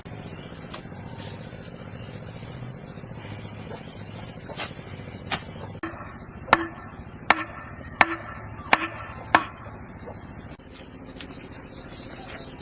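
Crickets chirring steadily, with a run of about seven sharp knocks from a little past a third of the way in, roughly one every 0.7 s; the last five are the loudest and ring briefly.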